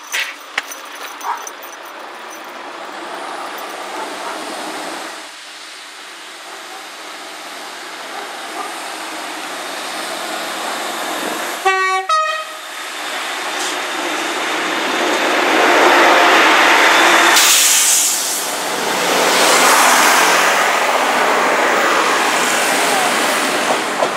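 Class 158 diesel multiple unit sounding a short horn blast, broken in two, about halfway through. It then runs over the level crossing, and its engine and wheel noise grows much louder in the second half.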